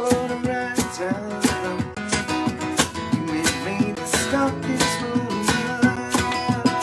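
Acoustic guitar strummed with a man singing and a steady beat of hand percussion, about two hits a second: a small band playing live.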